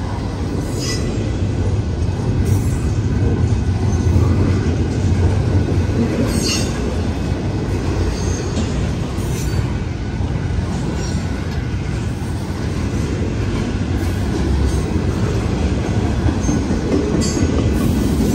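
Union Pacific double-stack intermodal well cars rolling past close by: a steady rumble of steel wheels on rail, with occasional sharp clacks as wheels cross rail joints.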